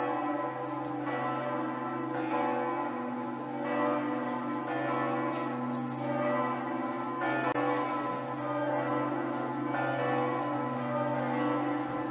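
Church bells ringing continuously, several bells overlapping, with a new strike about every second over their lingering hum.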